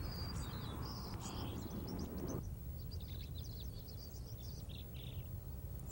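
Small wild birds chirping repeatedly in short high notes over a low steady background hum. A broad rushing noise underneath cuts off about two seconds in.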